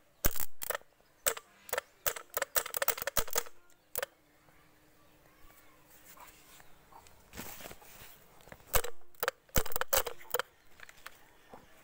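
Irregular sharp clicks and snaps as a battery cable lug is touched against the terminal of a Swaraj 744 tractor's starter motor on the bench, the loudest right at the start and in clusters again near the end.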